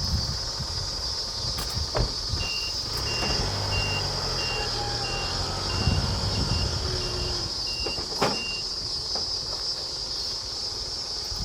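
Delivery truck's reversing alarm beeping at one steady pitch, about ten beeps at roughly one and a half a second, over the engine running, as the truck backs up. The beeps start about two seconds in and stop near the end.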